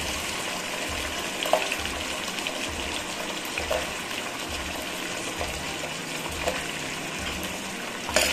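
Oil sizzling steadily in a steel kadai around potato cubes and freshly added fresh double beans, with a small pop now and then. A ladle clicks against the pan right at the end.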